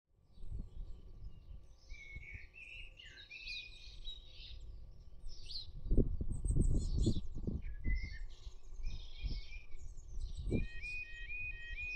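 Small birds singing and calling, with low rumbling gusts that are loudest about six seconds in. Near the end a level crossing's electronic warning alarm starts, a short rising tone repeated about three times a second, which signals that the crossing is beginning to close.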